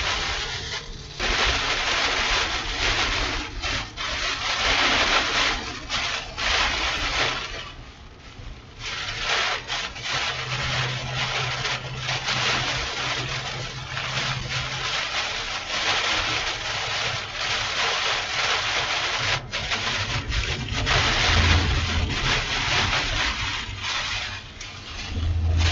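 Storm winds buffeting a vehicle as it drives fast away from a tornado: a loud, rough rushing noise that swells and drops, easing briefly about eight seconds in.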